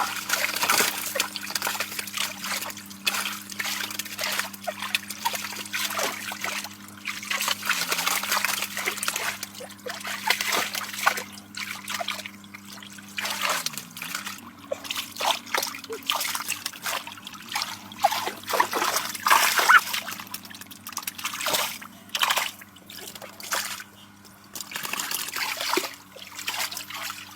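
Irregular splashing and sloshing of shallow water, with trickling in between, over a steady low hum.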